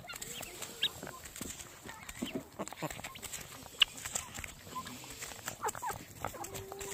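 A flock of chickens clucking, short scattered calls mixed with brief clicks; a sharp click about four seconds in is the loudest sound.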